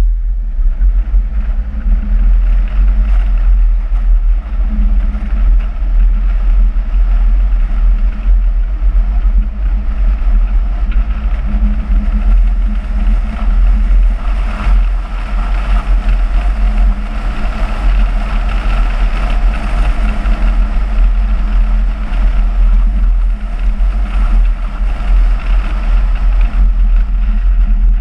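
Loud wind buffeting the microphone of a camera on a moving car, over the car's engine and road noise.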